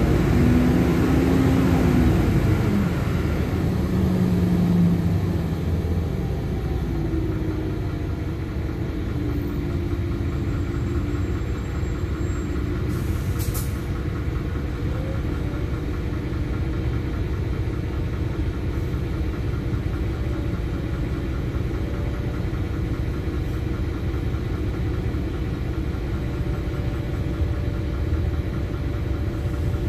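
Interior sound of a LiAZ-5292.21 diesel city bus. In the first few seconds the drivetrain whines, its pitch falling as the bus slows. Then the engine settles into a steady low rumble at idle.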